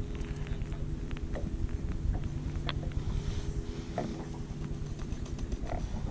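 Boat engine idling with a steady low hum, with wind buffeting the microphone and a few scattered faint clicks.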